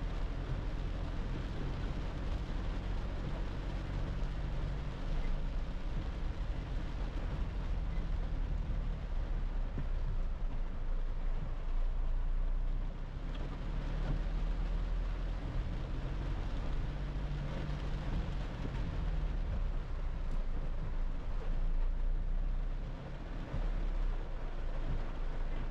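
Cab interior of a 2010 Toyota Hilux pickup driving in heavy rain: a steady low engine and road drone, with the hiss of tyres on the wet road and rain on the body.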